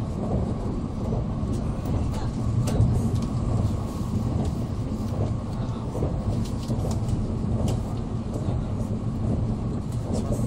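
Cabin noise inside an N700A Shinkansen running at speed: a steady low rumble from the running gear and passing air, with a few faint ticks.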